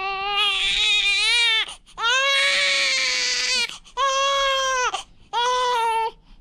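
Newborn baby crying: four wails in a row, each shorter than the last, with short breaths between them.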